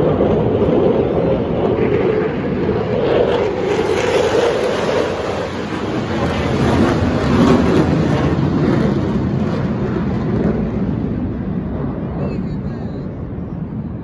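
Jet engine noise of two fighter jets flying overhead. The roar's pitch drops as they pass, a little past halfway, and then it slowly fades.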